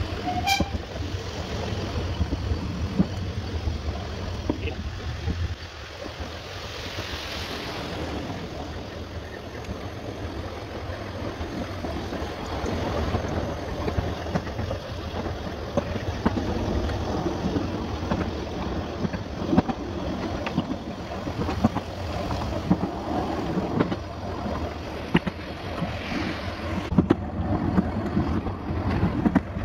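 Running noise of a narrow-gauge train, sped up fourfold: a steady rushing with many quick clicks.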